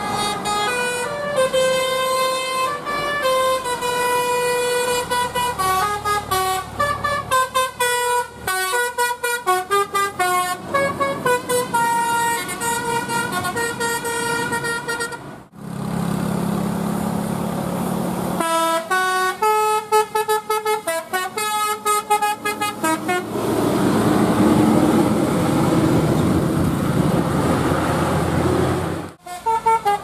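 Multi-trumpet telolet horns on Indonesian buses, playing quick melodies of stepped notes as the buses pass, with the bus engines running underneath. The sound cuts off suddenly about halfway through and again near the end, where one bus's pass gives way to the next.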